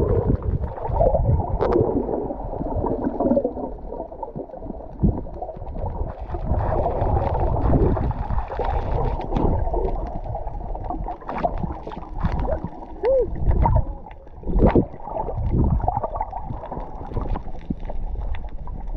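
Muffled underwater sound: water sloshing and gurgling around the swimmers, with low rumbles and scattered clicks and knocks.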